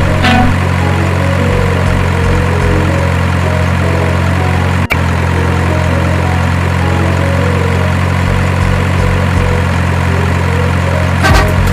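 Truck engine idling sound, a steady low hum that holds unchanged, dropping out for an instant about five seconds in.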